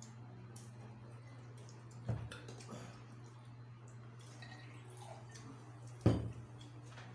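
Soda poured from a glass bottle into a cup, with a knock about two seconds in; a few seconds later the glass bottle is set down on the table with a sharp knock, the loudest sound. A steady low hum runs underneath.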